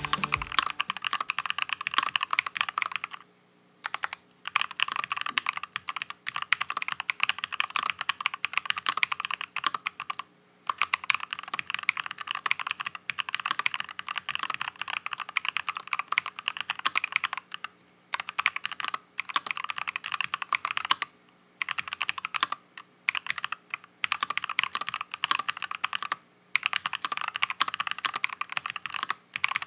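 Typing on a mechanical keyboard fitted with stock, unlubricated 'Faker Holy Panda' tactile (non-clicky) switches: fast, continuous keystrokes with a few brief pauses.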